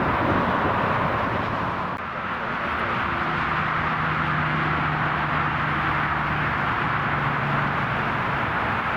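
Jet airliner engines running with a steady rushing noise, a faint low hum joining about three seconds in.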